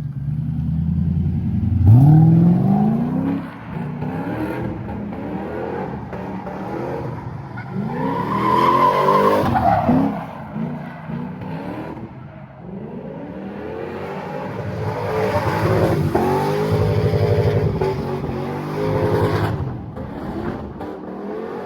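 1997 Lexus LS400's V8 revving hard over and over during a slide, the pitch climbing several times, with tyres squealing, loudest about eight to ten seconds in. The revs rise and fall with no upshift: the transmission is held in first gear.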